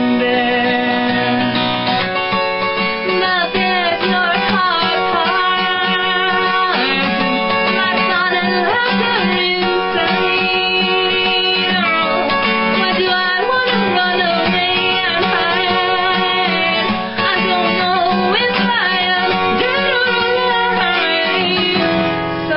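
A woman singing a folk song, accompanying herself on a strummed steel-string acoustic guitar in open B tuning.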